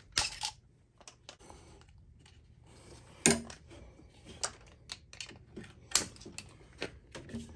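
Hard plastic clicks and knocks of a distributor cap being worked loose with a screwdriver and handled, the plug leads shifting. These are scattered sharp clicks, a second or so apart, the loudest about three seconds and six seconds in.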